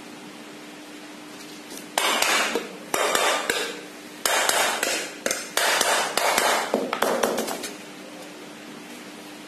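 A wooden mallet taps the metal housing of a reassembled ceiling fan about half a dozen times, roughly one blow a second, each with a short metallic clatter. The tapping goes with tightening the housing screws evenly, so that a slightly cross-seated bearing settles into place.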